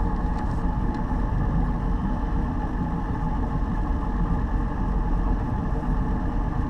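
Baja powerboat's engine running steadily while the boat cruises slowly, heard from the bow as an even low rumble.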